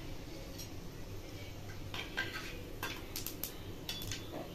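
Cumin seeds crackling in hot oil: scattered sharp pops, few at first and thickest from about two seconds in. This spluttering is the sign that the seeds are done and the tempering is ready for the next ingredient.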